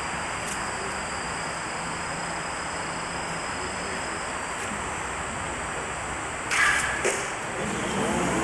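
A Japanese longbow (yumi) is loosed about six and a half seconds in: a sharp bowstring twang (tsurune), then a second crack about half a second later as the arrow strikes the target. Under it runs a steady tape hiss, and near the end crowd noise swells.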